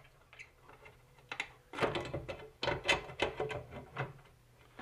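Metal clinks, knocks and scrapes for about three seconds, starting just over a second in, as a wrench turns out the last bolt of a Honda WT30 pump's outer housing and the housing is worked loose.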